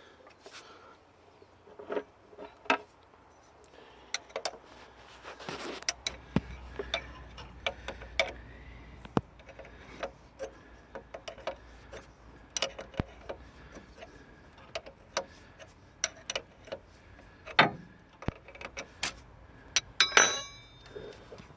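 Irregular metallic clicks and taps of hand tools working on a diesel engine, as the fuel lift pump is unbolted and taken off. A short cluster of quicker clicks comes near the end.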